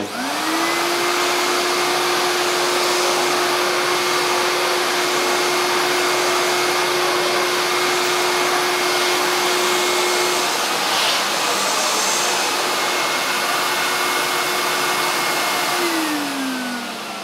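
Hoover SC364 Vogue 1300 bagged cylinder vacuum cleaner switched on, its motor spinning up to full speed within about half a second, with no soft start. It then runs steadily with a whine over a loud rush of air. Near the end it is switched off and the motor winds down in a falling whine.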